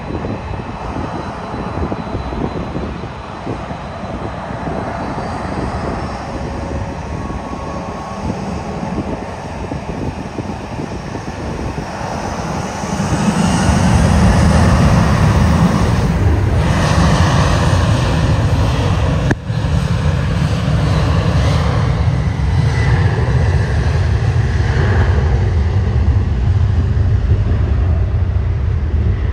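Twin-engine jet airliner's engines: a steady jet whine, then about thirteen seconds in a much louder deep rumble as they spool up to takeoff thrust and the plane starts its takeoff roll.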